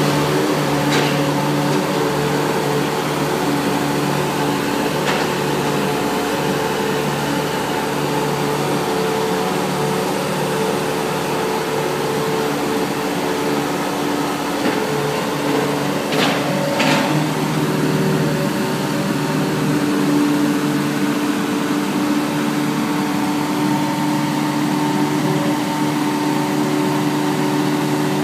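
Hitachi mini excavator's diesel engine running steadily under working load as the boom and bucket dig soil, with a few sharp knocks, two of them close together about two-thirds of the way through.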